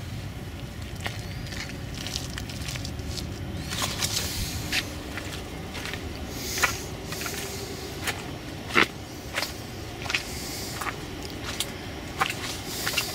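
Footsteps and rustling through garden plants with camera handling noise: irregular sharp clicks and a few brushing hisses over a steady low rumble.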